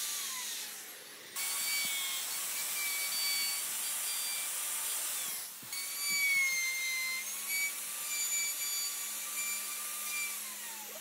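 Electric plunge router running with a high whine while cutting into a wooden panel. Its pitch falls as it spins down just after the start and again near the end, and it is back up to speed in between.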